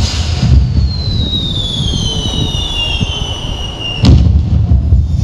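Fireworks display: a whistling firework's whistle, several tones together, falls slowly in pitch for about four seconds and ends in one sharp bang of a shell bursting, over a steady low rumble.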